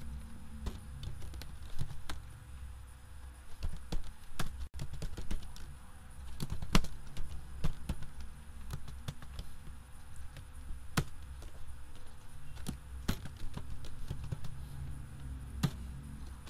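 Computer keyboard being typed on: irregular key clicks, a few at a time, over a low steady hum.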